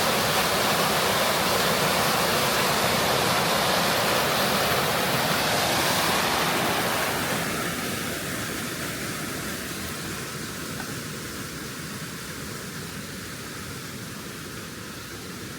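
Steady rushing of stream water, loud at first and growing quieter after about seven seconds.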